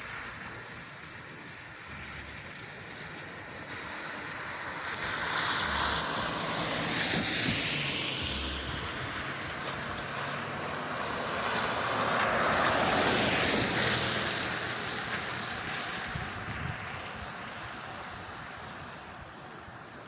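Two vehicles passing on a wet, slushy road, one after the other: the tyre hiss swells and fades, once about a third of the way in and again just past halfway.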